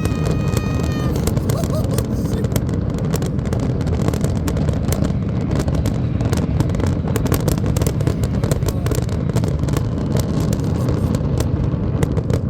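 Large fireworks display: a dense, steady rumble of shell bursts with many sharp crackles and pops. A high whistling tone trails off about a second in.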